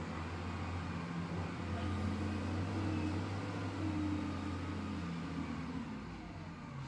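Diesel engine of an SDLG wheel loader running under load as it works a pile: a steady low hum whose pitch shifts slightly partway through and eases off near the end.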